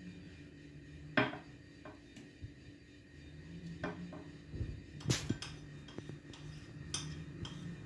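Spoon knocking and scraping against a plate as ground roasted peanuts are emptied into a blender jar: a few sharp clinks, the loudest about a second in.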